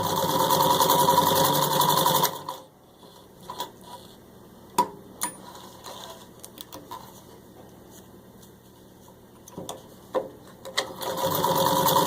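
Electric Singer 66-16 sewing machine running fast, stitching through four layers of vinyl upholstery for about two and a half seconds, then stopping. A few sharp clicks and knocks follow while the machine is still. It starts sewing again near the end.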